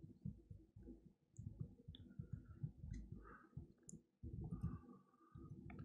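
Faint, irregular, dull clicks and taps of a laptop keyboard and trackpad being worked.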